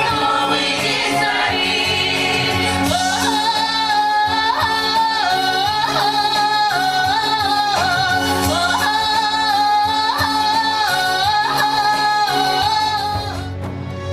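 Music with one singing voice holding long, ornamented notes over an accompaniment, fading out just before the end.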